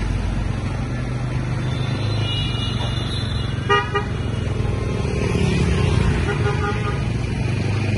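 Roadside traffic: motorbikes and cars passing with a steady engine hum, and a short, sharp vehicle horn toot just before the middle, with fainter horn beeps around it.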